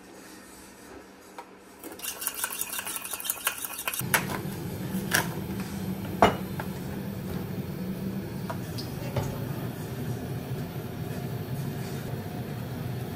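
A spoon stirring sauce in a small metal cup, clinking rapidly against the sides. Then a gas stove burner runs with a steady low rush, with a few sharp clacks of utensils and cookware, the loudest about six seconds in.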